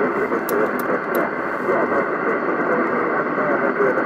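A distant station's voice coming through the SO-50 amateur satellite's FM downlink on a Yaesu FT-847 transceiver's speaker: muffled, narrow-band speech buried in steady hiss, with a few faint clicks about half a second to a second in.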